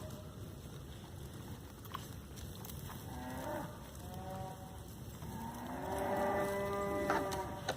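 Goats bleating: two or three short calls about three to four seconds in, then a long drawn-out call near the end. A sharp knock comes right at the end.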